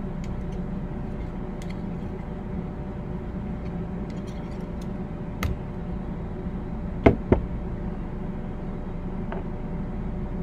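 Light clicks and metal knocks from a cleaning rod and revolver being handled and set down: faint ticks at first, a knock about five seconds in, then two sharp knocks close together about seven seconds in. A steady low hum runs underneath.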